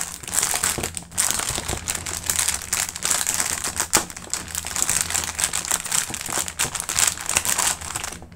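Clear plastic packaging bags crinkling and crackling as they are handled, a dense rustle with sharper clicks mixed in.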